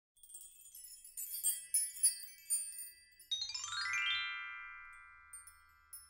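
Logo-intro chime effect: high sparkling tinkles, then about three seconds in a quick rising run of bell-like notes that ring on and fade away.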